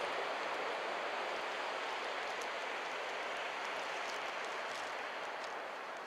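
Ocean surf: broken waves and whitewater washing up the beach, a steady rushing hiss that eases slightly near the end.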